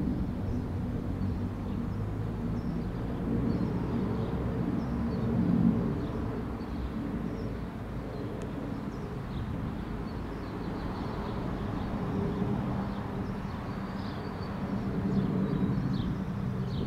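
Low, steady rumble of a four-engine Boeing 747-400F freighter's jets passing high overhead, swelling and easing slightly at times.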